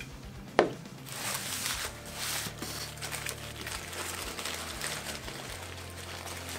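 A sharp knock about half a second in, then the paper wrapper of a McDonald's breakfast burrito crinkling in uneven bursts as it is unwrapped by hand.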